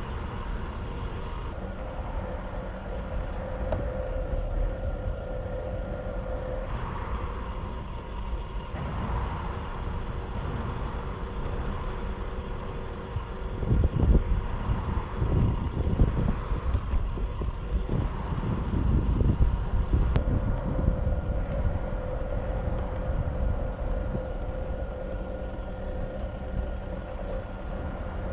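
Traxxas TRX-4 RC crawler driving over rough ground: a steady electric motor and gearbox whine, with uneven low rumbling and knocks that grow louder for several seconds mid-way.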